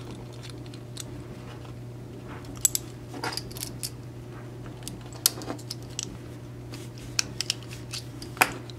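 Irregular sharp metallic clicks and scrapes as a small hand tool prys at a die-cast Hot Wheels Redline's metal base to pop it off the body once the rivet posts have been drilled. A steady low hum runs underneath.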